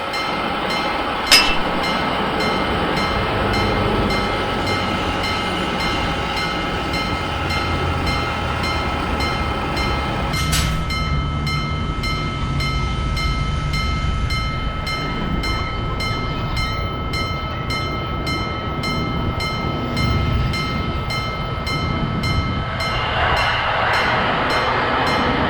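Japanese level-crossing warning bell ringing in a steady repeating rhythm while a train rumbles past. Two sharp clicks stand out, one early and one about halfway through.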